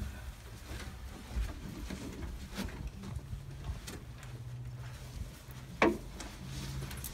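Horse walking on soft arena dirt: faint, muffled hoof falls and scattered small clicks, with one sharp louder click about six seconds in.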